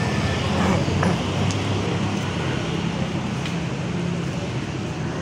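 Street traffic noise: a vehicle engine running close by with a steady low hum, under a wash of street noise and a few faint clicks.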